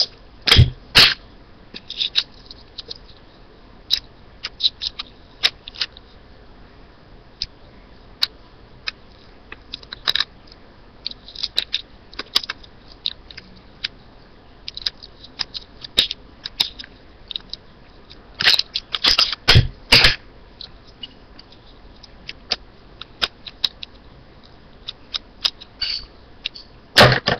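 Clear sticky tape being pulled off and pressed onto a small cardboard tube: scattered short crackles and clicks, with a louder run of tearing and crinkling about two-thirds of the way through.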